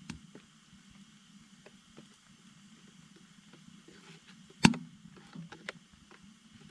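A metal utensil clinking and knocking in a steel camp mug: scattered light clicks, one loud knock about two-thirds of the way through and a few smaller ones after it, over a low steady hum.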